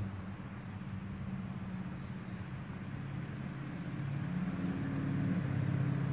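Distant road traffic: a steady low drone of vehicle engines, growing a little louder in the second half.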